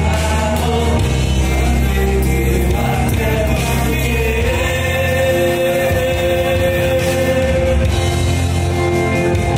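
A man singing into a microphone over backing music with a steady bass, holding one long note through the middle.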